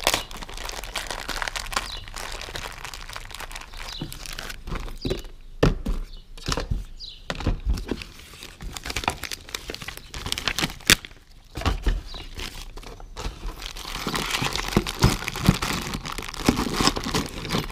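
Clear plastic packaging bag crinkling and rustling as it is handled and opened, with a few sharp clicks along the way.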